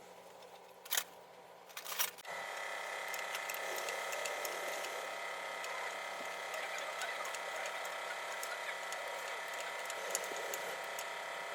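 A machine starts running about two seconds in and keeps going steadily, with a whine of several fixed tones and light ticking, after a couple of sharp clicks.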